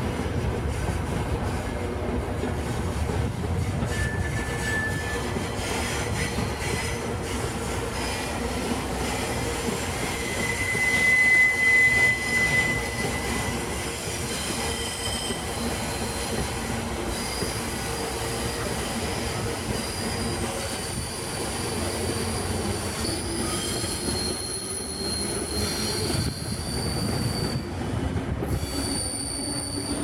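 Passenger train coaches rolling past on the rails with a steady rumble of wheels over track. Over it comes high wheel squeal on the curve: brief at first, loudest about a third of the way in, then several thinner, higher-pitched squeals through the second half.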